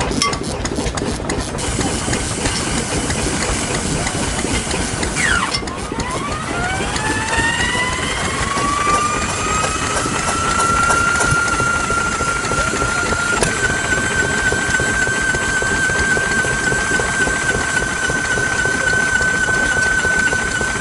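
Vintage Yanmar single-cylinder diesel engine with a spoked flywheel, running steadily. About five seconds in, a high whine dips, then climbs over a few seconds and holds a steady pitch.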